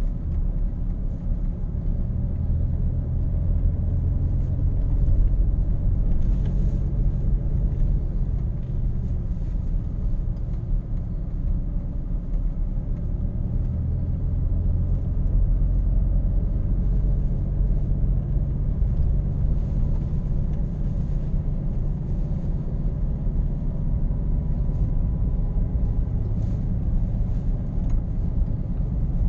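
Truck running with a steady low rumble that swells and eases slowly.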